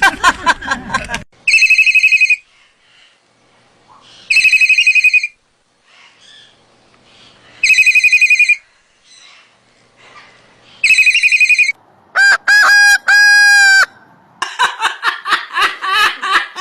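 A loud warbling telephone-style ring, four rings about three seconds apart. About twelve seconds in it is followed by a short run of held, chopped notes, and then by rapid bursts of laughter.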